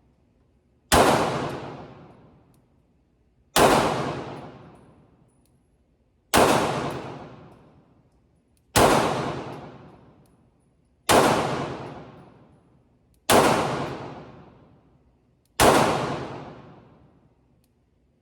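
Glock 19 Gen 5 9mm pistol fired in slow, single shots, seven in all, about one every two and a half seconds, each shot ringing out for about two seconds, with an eighth shot right at the end.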